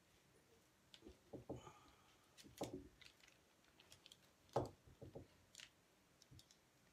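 Faint, scattered light knocks and clicks as a large stretched canvas is handled and tilted on the table, the loudest about four and a half seconds in.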